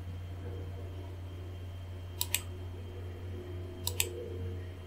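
Computer mouse clicking twice, each time a quick double click about a second and a half apart, over a steady low electrical hum.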